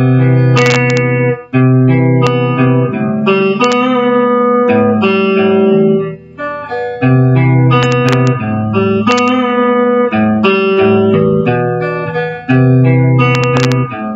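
A guitar plays a single-note riff of plucked notes on the low strings. About six seconds in the phrase starts over.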